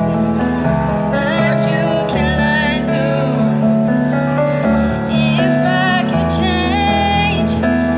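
Music playing: a slow tune of long held notes over a low bass line that steps from note to note.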